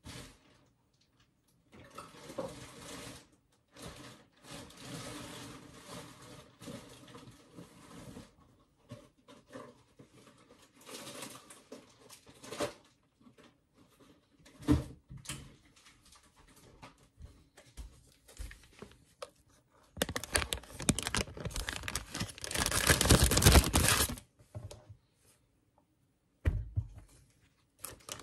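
Plastic bag crinkling and rustling in repeated bursts, with a sharp knock about halfway; the longest and loudest rustling lasts about four seconds, late on.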